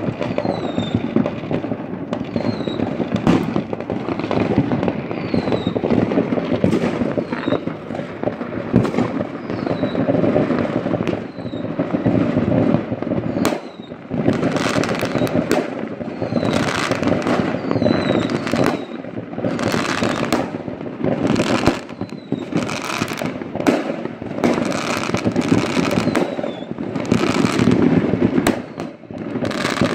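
Many fireworks going off at once across a city skyline: a continuous rumble of overlapping distant bangs and crackle. Sharper, louder bangs come thick and fast from about halfway on.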